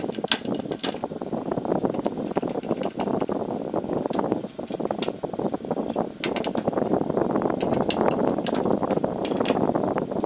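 Screwdriver working the small screws on an aluminium solar flood light housing, giving irregular light metal clicks and ticks over a steady background rush.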